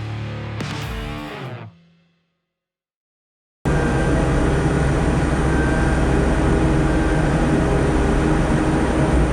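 Background guitar music fades out in under two seconds and is followed by a second or two of dead silence. Then a steady, loud engine-like running noise with a low hum cuts in abruptly.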